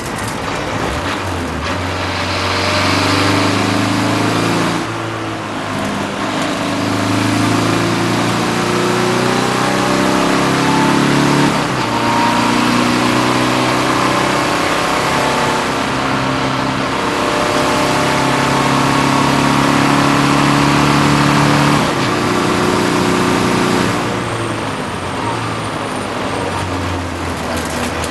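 BMW 330d race car's diesel engine heard from inside the cabin, pulling hard up through the gears, its pitch climbing steadily between shifts. It lifts off a few seconds before the end. Road and wind noise run underneath throughout.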